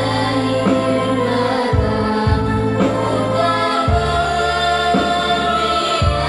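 Music: a song with singing over instrumental accompaniment, with a bass line that changes note every second or so.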